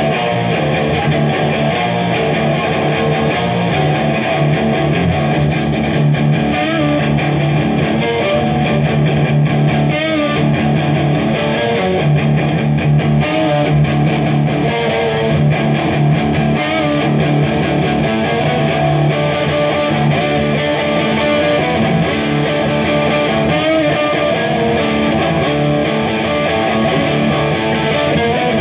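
Electric guitar played continuously through an amplifier, without a pause.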